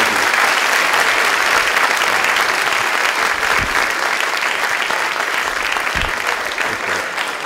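A large audience applauding: dense, steady clapping that eases off a little toward the end.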